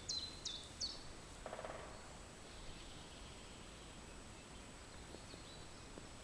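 A songbird singing a short run of high, quickly falling notes that ends about a second in, then a few faint calls later, over a quiet outdoor background.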